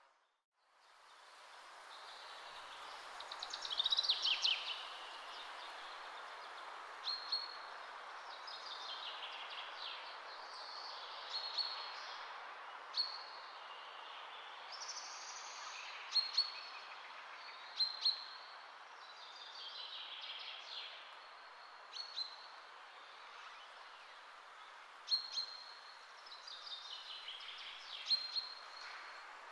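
Birds singing and calling over a steady outdoor hiss, fading in after a brief silence at the start. A short high chirp repeats every second or two, with longer descending twittering phrases among the chirps.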